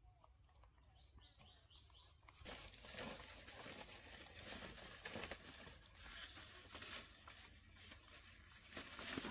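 Near silence: quiet outdoor background with a faint steady high-pitched whine. A quick run of faint chirps comes about a second in, and soft crackling and rustling runs from a couple of seconds in.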